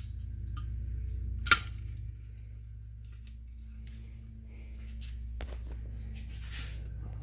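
Steady low mains hum from a running 1969 Zenith tube television chassis, with one sharp click about a second and a half in and a few faint clicks and rustles of handling as the high voltage is about to be measured.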